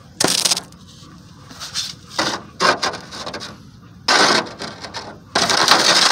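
Several short bursts of rustling and scraping as small objects are handled and set down on sandy dirt, with a longer stretch of rustling near the end.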